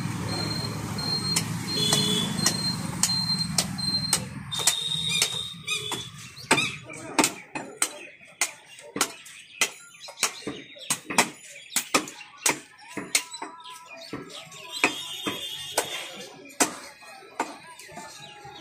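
Heavy butcher's knife chopping goat meat on a wooden stump block: a long run of sharp knocks, about two a second, starting a few seconds in. Before that, a steady low rumble of street traffic.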